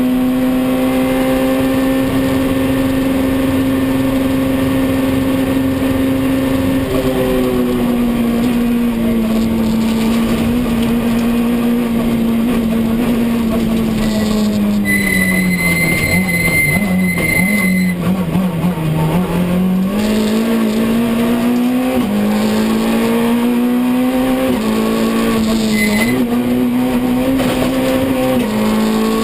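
Citroën C2 R2 rally car's engine heard from inside the cabin under hard driving. It holds high revs, then the revs fall away as it slows for a bend. A high, steady squeal lasts a few seconds while the revs are lowest, and then the engine climbs back up through several quick upshifts.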